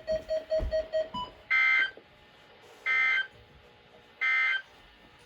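Three short electronic beeps of the same tone, evenly spaced about a second and a half apart, with faint radio hiss between them.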